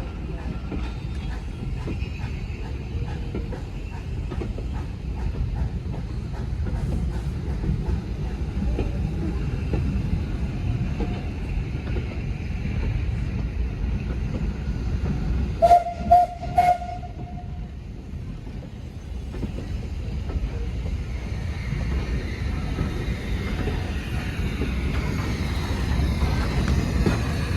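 Steam train running with a steady low rumble. About halfway through, a steam locomotive's whistle gives a few short, loud toots.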